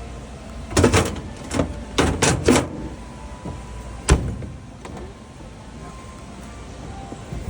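A display washing machine being handled: a quick run of knocks and clunks, then a single sharp click about four seconds in.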